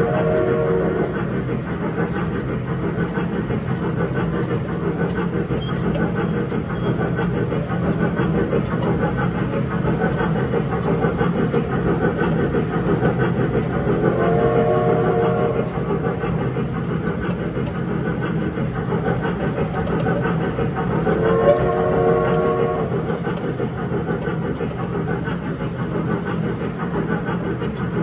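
Wattman electric mall train running with a steady low hum and rumble. Its electronic train-whistle sound effect plays in short chords, once ending about a second in and twice more in the second half.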